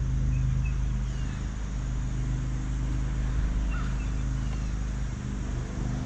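Steady low rumble and hum of road traffic on the bridge overhead.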